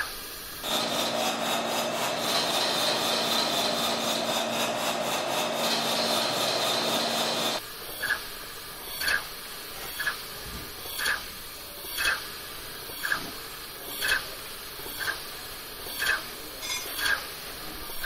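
Percussive airflow sound effect: a rasping, rapidly pulsing hiss over a steady hum for about seven seconds, which stops abruptly and gives way to short soft puffs about once a second.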